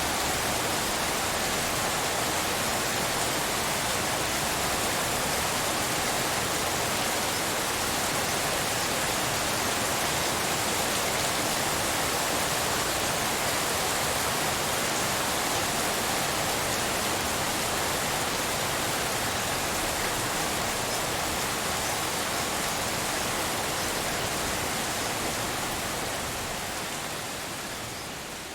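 Steady rainfall, a dense even hiss like pink noise with no separate drops or thunder standing out, fading down over the last couple of seconds.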